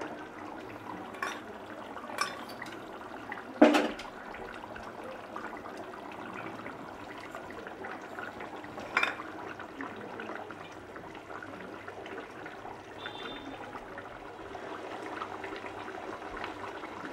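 Hilsa in yogurt-mustard gravy simmering in a nonstick pan, bubbling steadily. A few sharp knocks cut in, the loudest about four seconds in.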